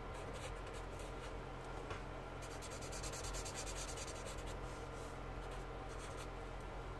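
Felt-tip Promarker nib rubbing on brown paper in short colouring strokes, with a quick run of back-and-forth strokes about two and a half seconds in.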